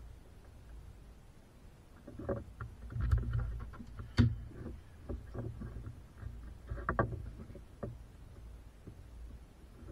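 Irregular knocks, clicks and rustles of hands handling parts and tools, with one sharp click about four seconds in, over a low rumble.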